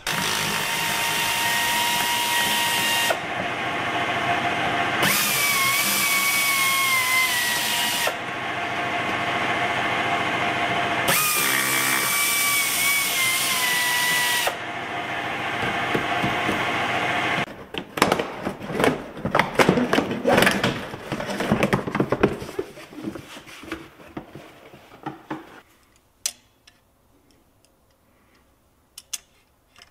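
Handheld power tool motor running for about seventeen seconds, its pitch sagging twice as it takes load, then stopping. After that comes a stretch of irregular clicking and metal rattling before it goes quiet.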